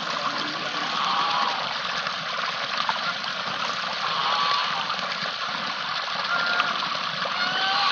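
Domestic geese dabbling and slurping in a trough of wet rice-and-paddy mash, a steady wet splashing chatter. A few faint short chirps sound over it.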